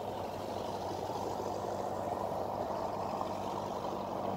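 Motor cruiser passing close on a river, its engine a steady low hum that grows louder toward the end, over a steady rushing noise.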